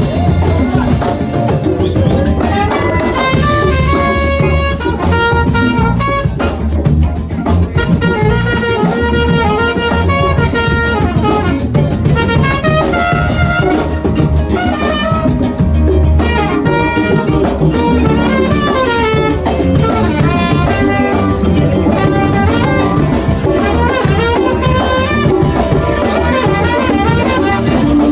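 Live funk band playing: a horn plays a melodic line of quick notes over drum kit and bass.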